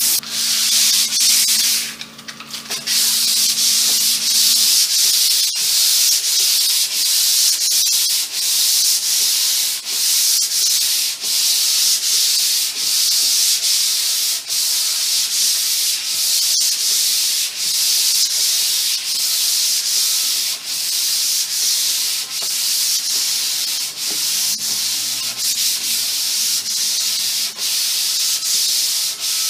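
Hand sanding of a solid cherry tabletop with 150-grit sandpaper, back-and-forth strokes along the grain for the final light pass before shellac. The strokes are steady and rhythmic, about one and a half a second.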